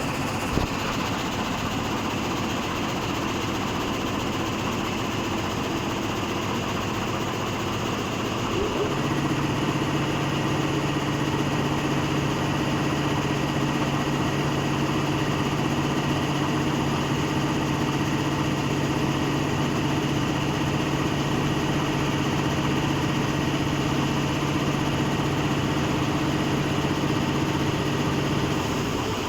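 SanHe 3030 frame saw machine running, a steady mechanical noise; about nine seconds in a steady low hum rises over it and holds, stopping just before the end.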